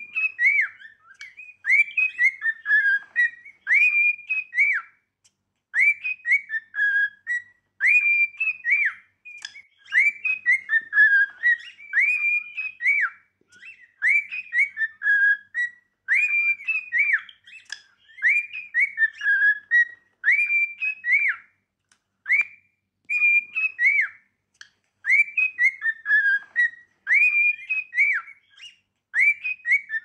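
Cockatiel whistling its song: quick, arched whistled notes strung into short phrases that repeat over and over with brief pauses between them.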